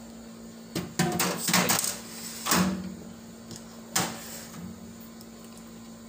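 Knocks and scrapes of a microwave oven's sheet-metal case being handled and turned around on a workbench: a cluster in the first two seconds, then single knocks about 2.5 and 4 seconds in.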